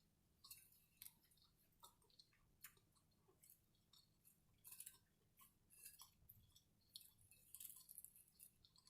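Faint chewing of a sub sandwich meal: scattered, irregular soft mouth clicks and small crackles.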